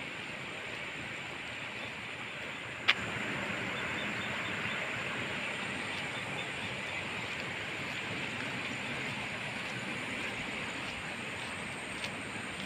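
Steady rushing of a river's flowing water, an even hiss, with one sharp click about three seconds in.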